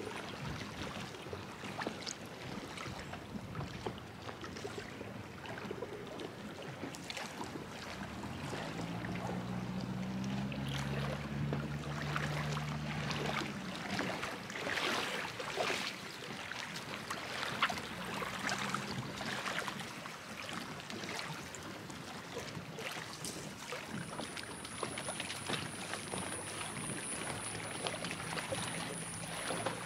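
Water lapping with a steady hiss and small irregular splashes. An engine drones for about five seconds, starting about a third of the way in. A thin high whine sets in near the end.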